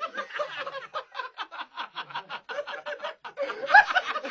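A rapid run of short, laughter-like vocal pulses, about five a second, growing loudest near the end.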